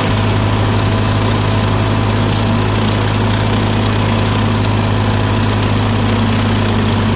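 Farm tractor engine running steadily as the tractor is driven, heard close up from the driver's seat behind the upright exhaust stack: an even, loud hum with a strong low note that does not change.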